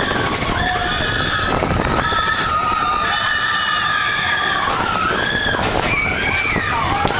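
Many riders screaming in long, overlapping cries over the steady rumble of a mine-train roller coaster running on its track.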